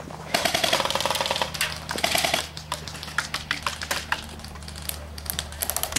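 Airsoft guns firing: a long rapid full-auto burst in the first two seconds, then shorter bursts and single shots, over a steady low hum.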